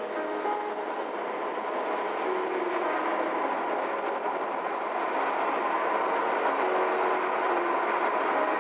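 Steady tyre and road noise inside a moving car, rising a little in level, with faint music playing over it.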